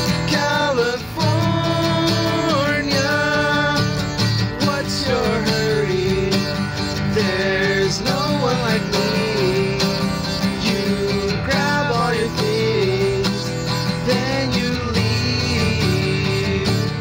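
Strummed acoustic guitar with two men singing a melody together.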